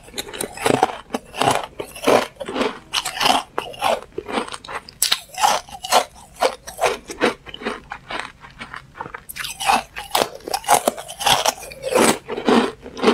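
Carbonated ice being bitten and chewed, a run of sharp, brittle crunches about two or three a second.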